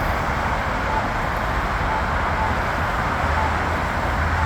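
Campbell accessible pedestrian signal push button sounding its locator tone, a short beep about once a second, while its walk sound stays silent. Steady road traffic and wind noise is louder underneath.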